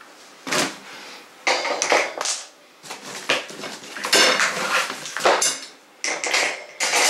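Metal wire rack shelves clinking and rattling against each other and scraping on cardboard as they are handled in and pulled from their box, in a run of sharp bursts that grows busier and louder in the second half.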